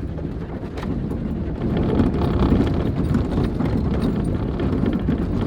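A 1998 Jeep Wrangler crawling over a rough, rocky trail, heard from inside the cabin: the engine runs low under an irregular clatter of knocks and rattles as the body and suspension are jolted over bumps.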